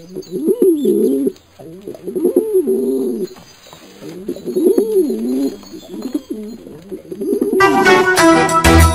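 Pigeons cooing: several bouts of low, rising-and-falling coos. Music begins near the end.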